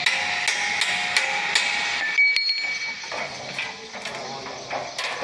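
Metal striking the steel frame: a run of quick metallic taps over the first second and a half, each with a short ring. A single clear ringing ping follows a little after two seconds in, then a few softer knocks.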